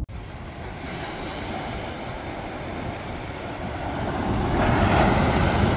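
Ocean surf washing onto the beach, a steady rush that swells about four and a half seconds in.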